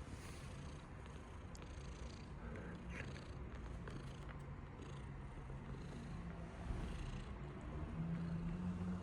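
Domestic cat purring steadily, a low pulsing rumble that grows louder near the end.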